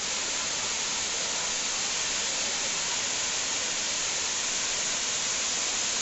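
Waterfall pouring down a rock face: a steady, even hiss of falling water.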